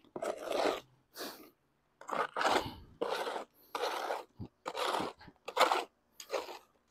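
Concrete mix being worked with a hoe in a plastic mixing tub: a gritty scrape-and-crunch with each pull and push, about eight strokes, roughly one a second.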